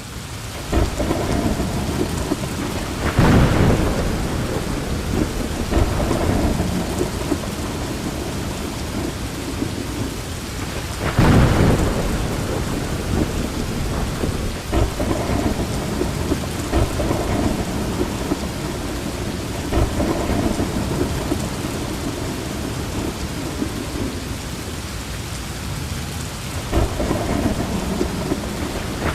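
Heavy rain pouring steadily during a thunderstorm, with louder thunder cracks about three seconds in and about eleven seconds in, and another near the end.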